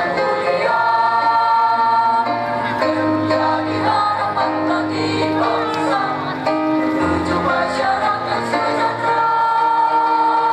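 A mixed choir of women and men singing in harmony, the voices holding long notes together.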